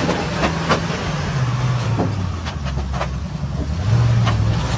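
Heavy truck engine running at low revs as the truck creeps over a rickety log-and-plank bridge, with several sharp cracks and knocks from the timbers. The engine gets louder about four seconds in.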